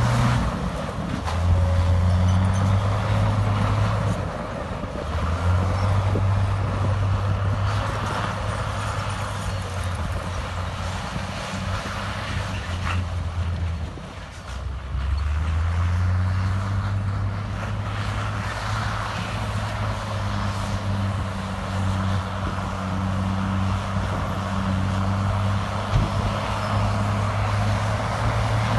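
Heavy earthmoving machine's diesel engine working under varying load, its low note rising and falling. It dips briefly about halfway through and then climbs again.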